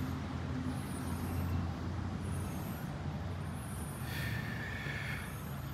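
Steady low drone of a motor vehicle's engine running nearby, with a brief higher whine about four seconds in.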